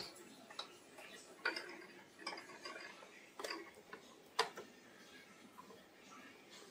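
Light clicks and taps on a plastic sewing machine body with soft handling rustles, as a thread spool is fitted and the machine is threaded; the sharpest click comes a little after four seconds.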